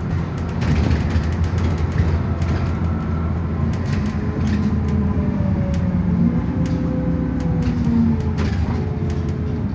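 Bus heard from inside the passenger cabin while under way: the engine and drivetrain running with road noise, a faint whine shifting in pitch in the second half, and light clicks and rattles from the bus's fittings.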